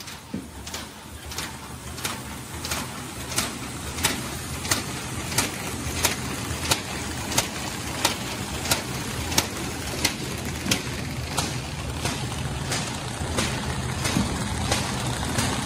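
Automatic kraft paper bag making machine running, with a sharp, even clack about one and a half times a second over a steady mechanical hum, growing louder toward the end.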